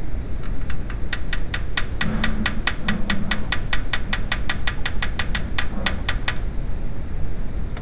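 Ratcheting hand tool clicking quickly and evenly, about five clicks a second for around six seconds, as it is worked back and forth on a fastener; a steady low rumble runs underneath.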